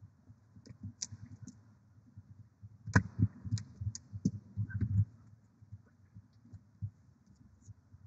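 Barn owl shifting and settling over its eggs on the nest box's wooden floor: a run of soft low thumps and scuffs, the loudest about three seconds in, with faint clicks.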